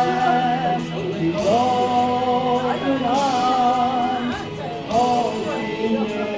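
A song with a singer: long, wavering held notes in phrases over steady instrumental backing.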